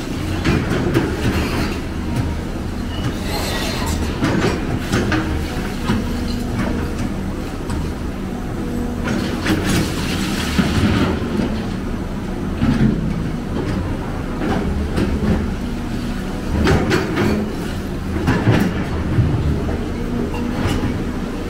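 Heavy diesel machinery running with a steady low engine hum, overlaid by repeated metallic clanks and rattles.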